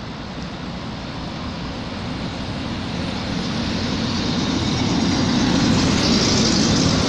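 Electric locomotive hauling a container freight train approaches and runs past close by, a rumble of wheels on rails that grows steadily louder and peaks with a hiss as the locomotive and first wagons go by.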